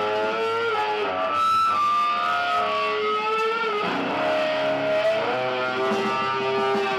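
Loud rock music led by distorted electric guitar, playing held notes that slide between pitches.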